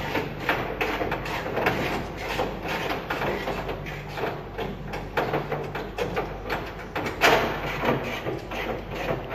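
The 1972 Dodge Charger's engine running, a steady low hum under irregular clicking and clattering, with one louder clack about seven seconds in.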